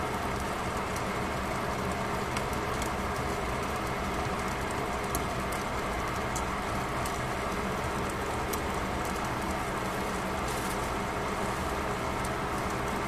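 Fish fillets sizzling steadily in a foil-lined pan under a glass lid, with scattered small pops.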